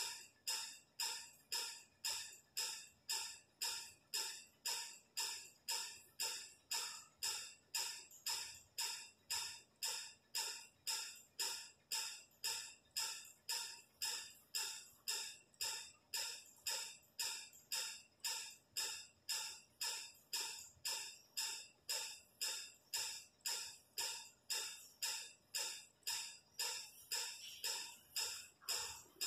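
Steady, even ticking like a clock, about one and a half ticks a second, each tick sharp and fading quickly.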